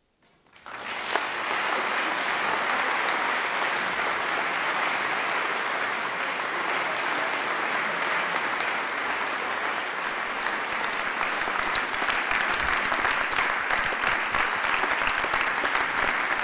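Audience applauding: clapping begins suddenly about half a second in, swells within a second, and carries on as steady, dense applause.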